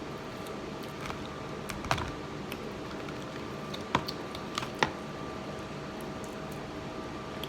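Scattered light clicks and taps of kitchen utensils during cooking, irregular and a few seconds apart, over a steady faint hum with two even tones.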